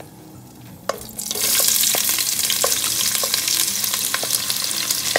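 Sliced red onions tipped into hot oil in a stainless steel pot: a loud sizzle starts about a second in and keeps on steadily, with a few light clicks over it.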